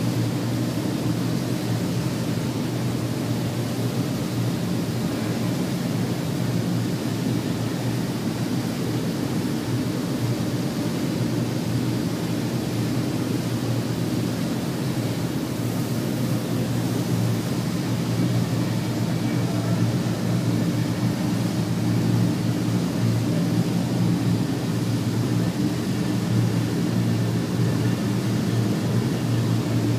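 Flattening rolling mill running, a steady mechanical hum of motor and rollers that grows a little louder about halfway through.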